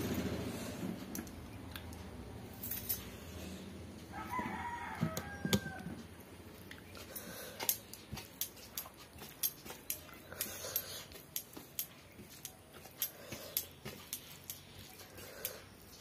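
A rooster crows in the background about four to six seconds in, then a run of small sharp clicks and clinks as fingers mix rice on a metal plate and bangles knock together.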